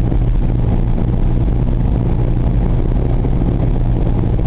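Car interior noise while driving: the engine and tyres make a steady low hum and road noise inside the cabin.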